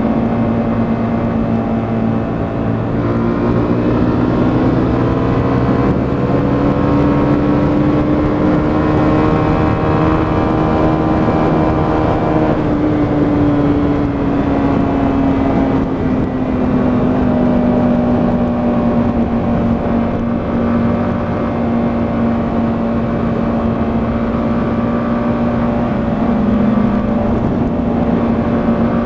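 125cc motorcycle engine running under way at cruising revs. Its pitch rises gently over the first ten seconds and then eases back down, under a steady low rushing noise.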